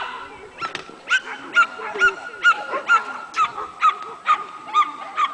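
A dog barking over and over in a steady rhythm, about two short barks a second, starting about a second in.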